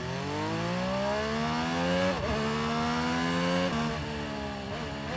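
125 cc scooter's single-cylinder engine accelerating: its pitch climbs for about two seconds, dips briefly, climbs again, then drops to a lower, steadier note for the last second or so.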